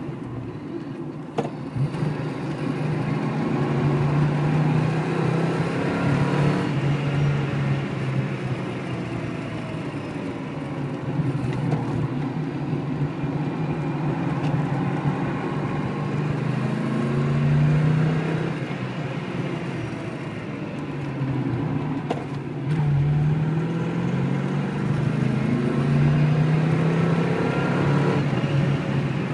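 Rover 3500S's 3.5-litre V8 engine pulling the car round a circuit, heard from inside the car. The engine note climbs under acceleration several times and eases off in between.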